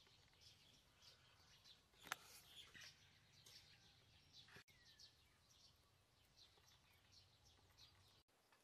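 Faint outdoor ambience of small birds chirping with short, repeated high chirps, and a single sharp click about two seconds in.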